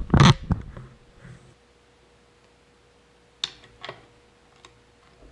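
Sparse metallic clicks as the crankshaft of a 5.9 Cummins 12-valve block is pushed back and forth against a dial indicator to check crankshaft end play: two sharp clicks a little past halfway and a lighter tick soon after. A brief knock comes at the very start, and a faint steady tone lies underneath.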